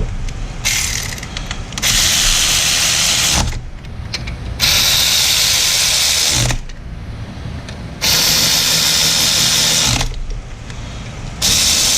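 A handheld power tool, run in four bursts of about two seconds each with short pauses between, driving in the mounting bolts of a new A/C compressor.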